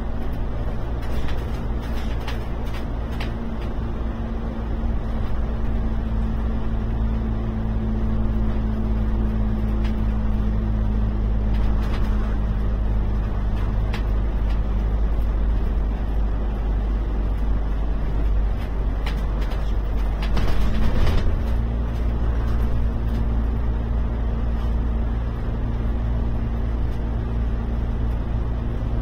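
Alexander Dennis Enviro 500 MMC double-decker bus cruising through a road tunnel, heard from inside the cabin: a steady engine hum over road and tunnel noise. The hum fades for a few seconds in the middle and comes back with a brief louder rush of noise about twenty seconds in.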